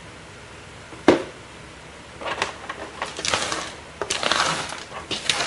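Computer hardware being handled inside a desktop case: a sharp knock about a second in, then irregular clattering and scraping of metal parts.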